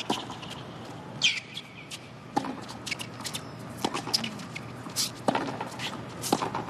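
Tennis ball being hit back and forth in a rally on a hard court, with sharp strikes about every one to one and a half seconds. Sneakers squeak briefly on the court between shots.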